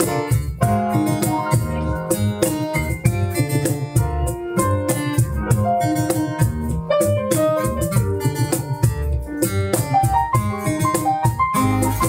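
A band playing an instrumental passage of a Vietnamese soul-pop song without singing, with keyboard to the fore over a quick rhythmic pulse.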